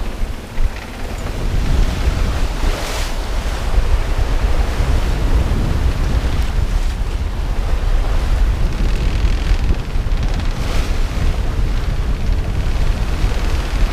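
Strong wind buffeting the microphone over rough sea rushing and breaking around a sailing yacht, with two louder washes of spray, about three seconds in and again about eleven seconds in.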